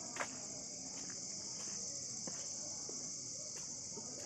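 Insects chirring in a steady high-pitched chorus, with one sharp click shortly after the start and a few fainter ticks.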